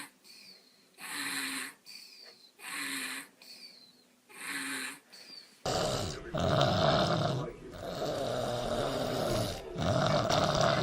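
A sleeping baby snoring in rhythmic breaths, about one every second and a half or so. About halfway in it gives way abruptly to a louder, rougher, near-continuous grunting noise.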